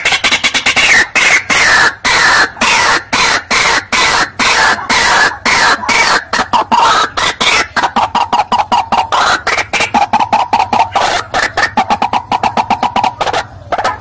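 White-breasted waterhen (ruak-ruak) calling: a loud, unbroken run of harsh repeated notes that quickens from about three a second to several a second.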